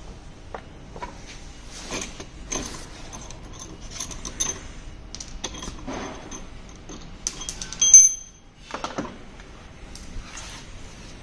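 Ratchet wrench and loose metal parts of a scooter's front fork being worked by hand: scattered clicks and metal clinks, with one loud ringing metal clink about eight seconds in.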